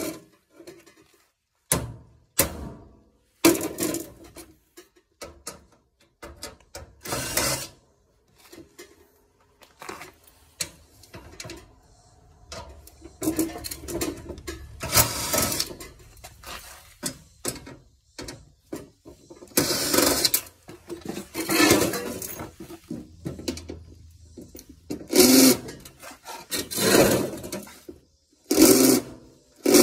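Hand tools working on the metal parts of a washing machine being stripped for scrap: irregular clanks and knocks, with rasping, grinding bursts of about a second each in the second half.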